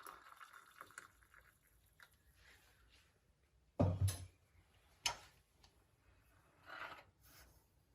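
Scattered handling knocks and clicks of a cup and spoon in a small room. The loudest is a dull knock about four seconds in, followed by a sharp click and a short rustle.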